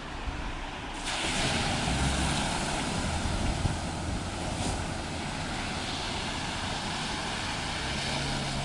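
Steady rushing of fast-flowing floodwater, which starts abruptly about a second in and holds level.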